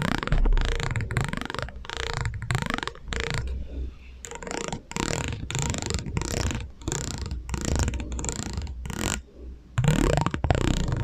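ASMR trigger sounds run through a heavy echo effect: a run of short strokes broken by brief gaps, some sweeping down and back up in pitch.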